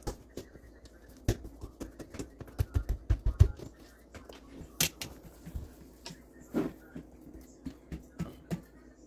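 Hands working bread dough on a kitchen counter and onto a metal baking tray: scattered soft knocks and clicks, with a quick run of low thumps about three seconds in.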